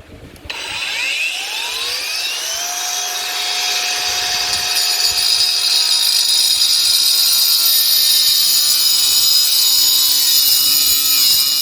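Brushless angle grinder with a 4-inch Lenox Metalmax cutting disc spinning up about half a second in, its whine rising in pitch, then running at full speed as a steady high whine with the grinding noise of the disc cutting into a hardened steel padlock. The grinder stops right at the end.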